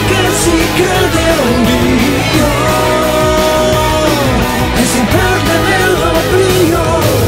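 Rock song playing loudly: electric guitar with bending notes over a steady drum beat, with some singing.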